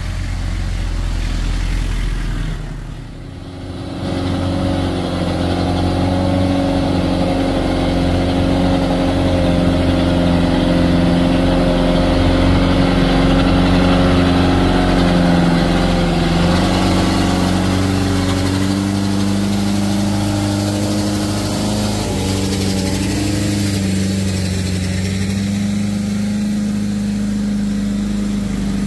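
Light truck engines running hard under load on a steep climb, holding a fairly steady pitch. There is a brief drop in loudness about three seconds in and a small shift in pitch around the middle.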